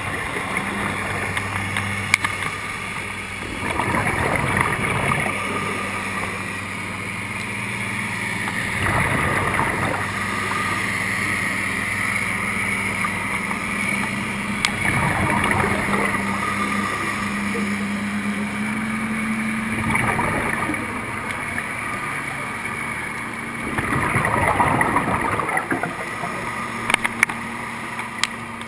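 Scuba regulator exhaust bubbles heard underwater: a rushing, gurgling burst of bubbles five times, about every five to six seconds with each breath out. Under it runs a steady low hum, like a boat engine heard through the water.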